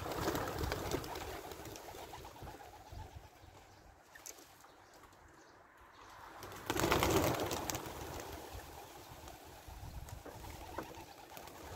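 A flock of homing pigeons taking off from a loft roof in a clatter of wing beats, in two bursts: one right at the start and a louder one about seven seconds in.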